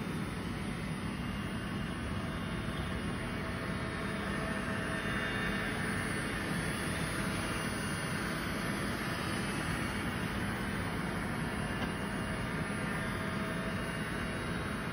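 A cheap robot vacuum running, its small motor giving a steady whirring hiss with a faint hum.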